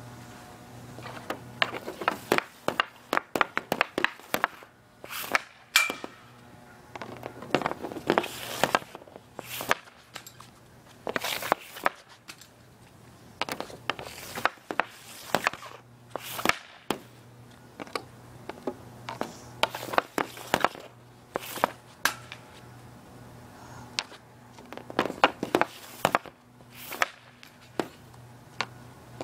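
Easton RS II composite hockey stick shooting pucks off a plastic shooting pad: repeated sharp clacks of the blade slapping the pad and striking the puck, some single and some in quick runs of several, spread through with short pauses between shots.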